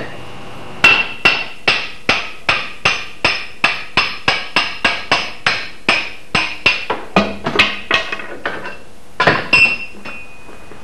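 Hammer driving a steel axe drift to knock a wooden handle out of the eye of a racing axehead clamped in a vise. It is a fast run of ringing blows, about three a second, then a short pause and two more blows near the end.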